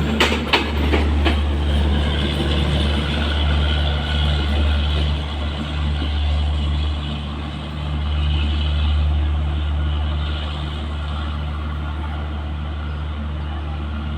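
Express train of LHB coaches rolling on the rails: a few wheel clicks at the start, then a steady low rumble that settles and evens out over the last few seconds.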